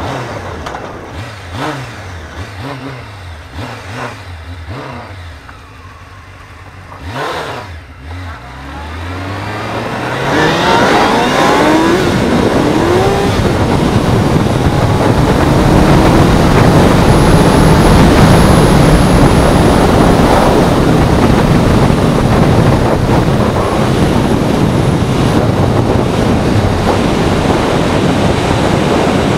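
Honda CBR600F3 sport bike's inline-four engine at low revs, rising and falling about once a second. Near ten seconds in it accelerates hard through several upshifts, pitch climbing in steps, and loud wind rush on the microphone at speed then covers the engine.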